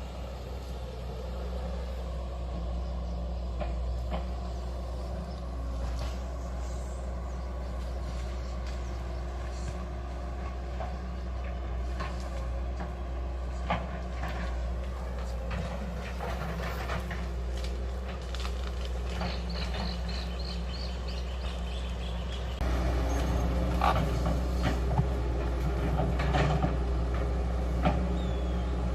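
Hydraulic excavator at work: its diesel engine running steadily, with scattered knocks and clanks from the machine as it digs. The sound steps up suddenly and stays louder from about three quarters of the way through.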